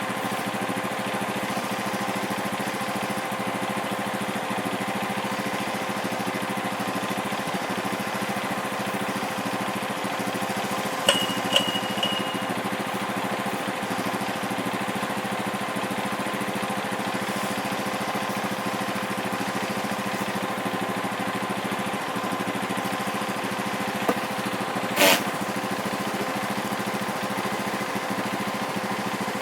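A vehicle engine idling steadily, with two brief sharp sounds, one about eleven seconds in and one about twenty-five seconds in.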